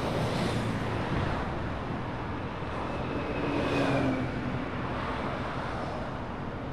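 Steady wind rush and road noise of a touring motorcycle cruising at speed, with the engine's low drone underneath; the noise swells briefly a little past halfway.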